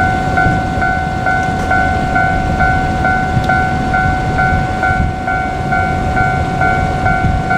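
Japanese level-crossing warning bell ringing in a steady repeated electronic ding, about two strikes a second, over a low rumble.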